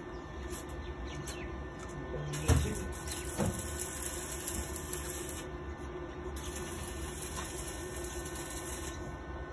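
Electric arc welding crackling and hissing on a seat's safety lock, the hiss pausing briefly a little past halfway. Two sharp knocks about two and a half and three and a half seconds in, the first the loudest.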